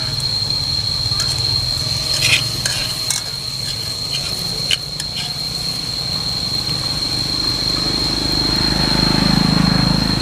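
Food frying in hot fat in a pan, with a metal utensil clinking against the pan several times between about one and five seconds in as the food is stirred and lifted out. A steady high-pitched whine sounds behind it, and a low rumble builds near the end.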